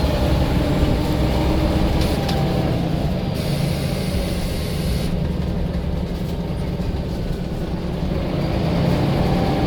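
Scania L94 bus's turbocharged diesel engine running steadily, with a continuous low drone.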